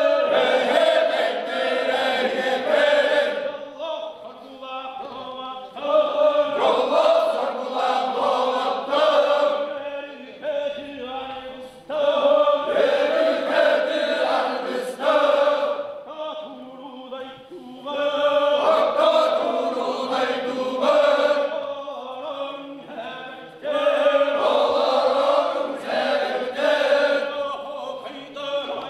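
Sakha osuokhai round-dance song: a group of men chanting in call and response. A single lead line alternates with a loud group repeat about every six seconds, five group phrases in all.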